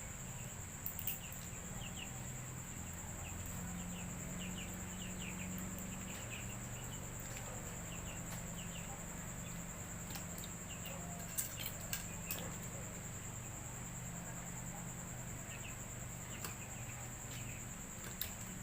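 Steady high insect drone with short repeated bird chirps, broken by a few sharp cracks of crab claw shells being pounded open: once about a second in, three in quick succession past the middle, and once near the end.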